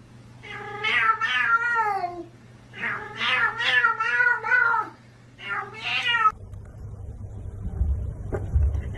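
Domestic cat yowling: three long, drawn-out, wavering meows. They cut off abruptly about six seconds in, giving way to a low rumble.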